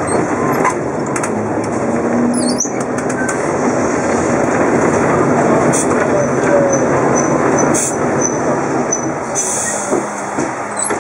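Vintage electric tram running on street rails, heard from inside its wooden cab: a steady rumble and rattle from the wheels and car body, with a few clicks. A faint, thin wheel squeal comes in through the middle.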